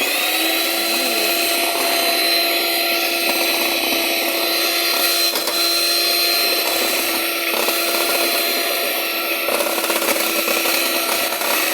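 Electric kitchen mixer running continuously at steady speed, mixing pancake batter, with a steady whine over the whirring. Its pitch rises briefly at the very start as the motor spins up.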